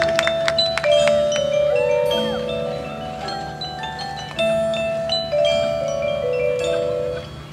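A marching band's front ensemble playing a soft passage on mallet percussion (marimba, vibraphone, glockenspiel), struck notes ringing over a slow melody of held notes.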